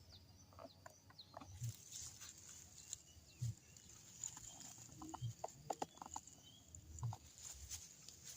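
A wild spotted dove (tekukur) calling in an unusual, strange-sounding voice: short low coos repeated evenly about every two seconds.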